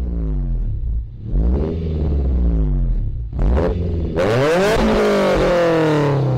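Car engines revving and driving by; the loudest vehicle passes about four seconds in, its engine pitch falling as it goes away.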